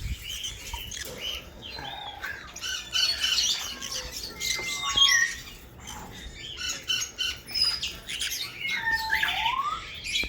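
Caged pet birds chirping and squawking, many short calls and whistled notes overlapping, with a rising whistle near the end.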